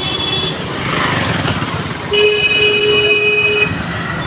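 Busy market-street traffic: motor vehicles running in slow traffic, with a vehicle horn held for about a second and a half just after the middle.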